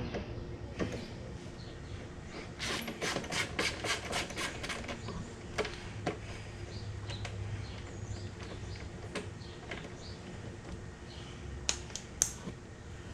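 Hands working wiring in behind plastic body panels: a flurry of rustling and clicking a few seconds in, then scattered light clicks, with two sharper clicks near the end.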